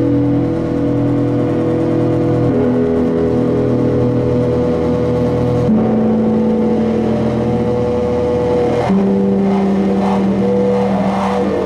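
Live electronic drone music: loud sustained tones held as a chord, which shifts to new pitches about every three seconds.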